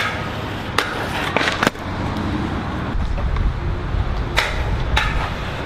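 Stunt scooter riding on a concrete skate park: hard wheels rolling with a low rumble, and several sharp clacks of the wheels and deck hitting the concrete.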